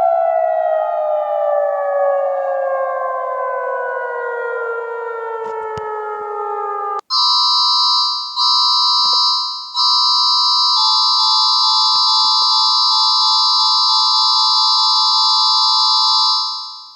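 Emergency alert system alarm tones: first a tone with strong overtones sliding slowly down in pitch for about seven seconds, then a steady alarm of several high tones sounding together, which breaks off briefly twice and fades out near the end.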